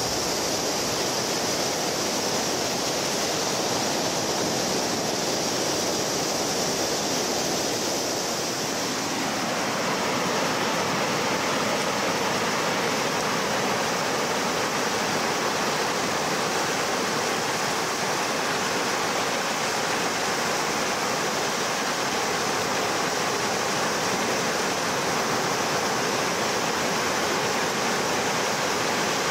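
Surf on a sandy beach: a steady rush of small waves breaking and washing up over wet sand, its tone shifting a little about nine seconds in.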